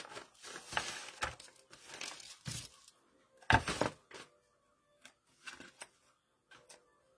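Dry crinkling and rustling of dried and faux leaves and ribbon being handled and pressed onto a wooden craft board. About three and a half seconds in there is one sharp, louder crack, followed by a few light clicks.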